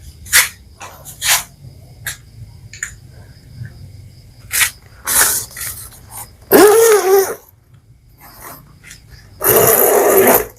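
A man sneezing and coughing in short bursts, the loudest near the end, amid light clicks and knocks.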